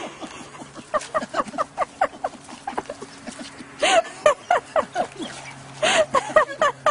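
Dog whining and squealing in a rapid string of short, high cries, with louder yelping cries about four and six seconds in: excited greeting of its returning owner.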